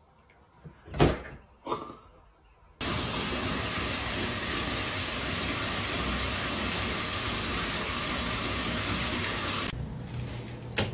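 Two short knocks about a second in, then a loud, steady rushing hiss that starts abruptly and lasts about seven seconds before cutting off.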